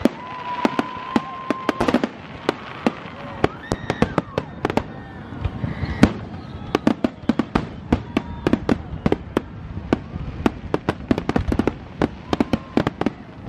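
Aerial fireworks bursting in rapid succession, sharp bangs and cracks several times a second over a continuous rumble of overlapping explosions.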